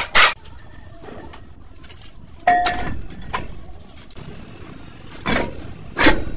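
Metal tools and parts clanking and clinking as they are handled during truck wheel-hub work: two quick knocks at the start, one about two and a half seconds in that rings briefly, and two more near the end.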